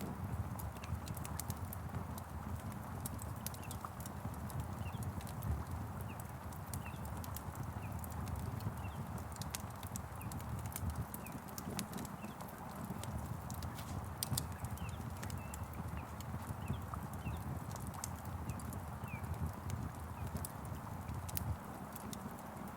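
Crackling fire: a steady low roar with scattered sharp crackles and pops, and faint short bird chirps above it.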